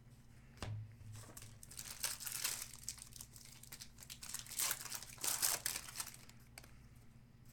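Crinkling of a trading-card pack's foil wrapper being handled and torn open, in irregular crackly bursts.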